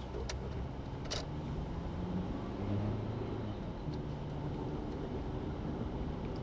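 Car engine hum and road noise heard from inside the cabin while driving, with two short clicks in the first second or so.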